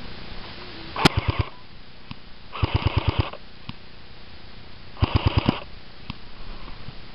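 Cybergun FAMAS airsoft rifle firing three short bursts of full-auto fire, about a dozen shots a second; the middle burst is the longest.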